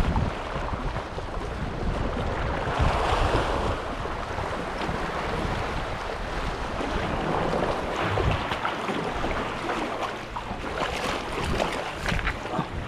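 Sea waves washing against the shore, swelling and falling back, with wind buffeting the microphone. A few sharp clicks near the end.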